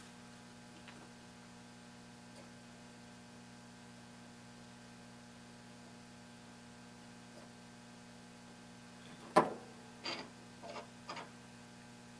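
Steady low electrical hum made of several evenly spaced tones. About nine seconds in comes one sharp knock, then a few lighter clicks and taps as the small circuit board is handled.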